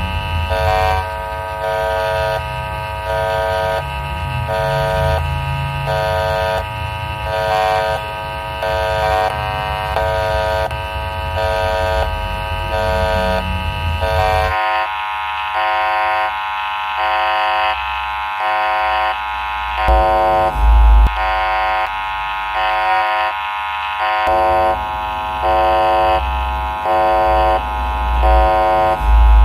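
Indonesian railroad crossing alarm sounding a repeating electronic two-tone chime, alternating about once a second. About halfway through the sound changes abruptly and the low background rumble drops out, leaving the alarm with a few low thumps.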